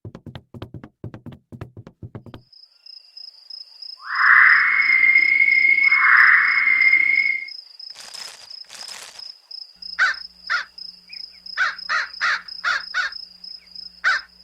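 Cartoon sound effects of crows cawing: a loud drawn-out call in two swells, then a rapid run of short harsh caws near the end, over a steady high insect-like chirr. Soft clicks come at the start.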